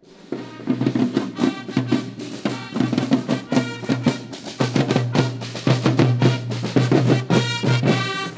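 Marching band playing a march: steady drum beats under brass horns, fading in at the start.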